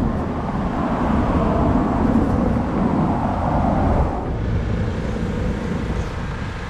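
Steady low rumble and noise of a motor vehicle or road traffic, easing a little about four seconds in.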